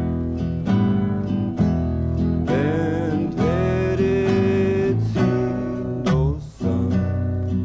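Instrumental break of a 1970s folk-country band song: an acoustic guitar strums chords about once a second. In the middle a melodic lead line rides over it, sliding and bending in pitch with vibrato. The music drops briefly near the end.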